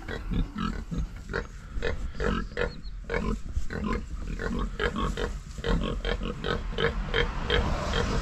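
Idaho Pasture Pigs, a farrowed sow and her newborn piglets, making a steady run of short grunts, about two to three a second.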